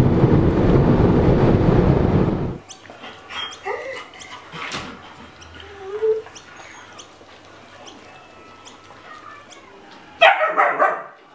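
Steady road noise inside a moving car that cuts off about two and a half seconds in, followed by quiet with a few faint clicks. Near the end, a Siberian husky puppy barks in a quick burst of sharp yaps.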